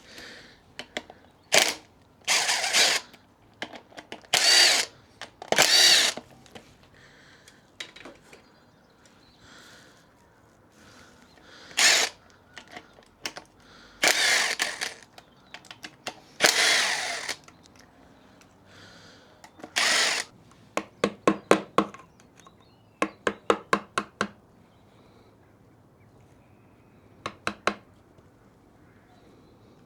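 A power tool run in short bursts of about a second each while undoing the clutch fastenings on a Suzuki RG Wolf 125 two-stroke engine. Later come three quick runs of rapid, evenly spaced clicks.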